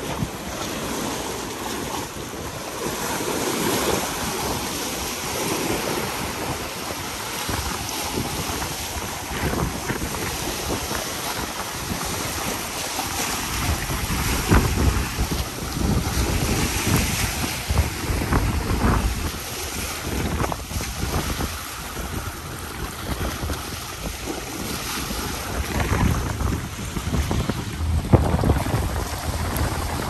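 Small sea waves washing and splashing over a rocky shore, rising and falling as each one breaks, with wind gusting on the microphone in low rumbles.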